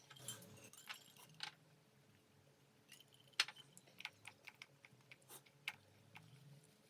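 A quiet, irregular run of short clicks and taps, a few early on and more in a cluster in the second half.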